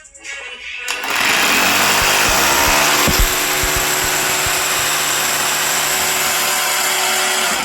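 Electric power drill starts about a second in and runs steadily and loudly with a motor whine, drilling mounting holes into the wall for a TV bracket, then stops at the end.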